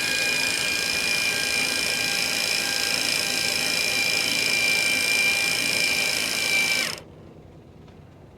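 Electric sailboat winch running steadily under load as it works a sail line, a high whine that winds down and stops about seven seconds in.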